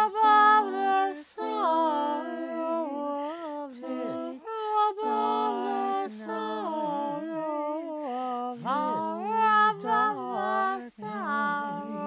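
A woman singing an unaccompanied round with several overlapping layers of her own voice. Held notes at different pitches sound together, with short gliding phrases between them.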